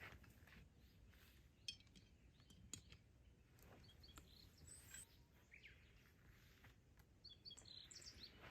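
Faint bird chirps over quiet outdoor ambience, in two short clusters, one about four seconds in and one near the end, with a couple of soft clicks earlier.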